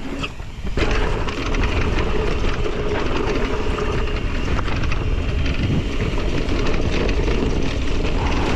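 Mountain bike being ridden down a dirt trail, starting about a second in: tyres rolling over dirt with the bike rattling, and wind rumbling on the microphone.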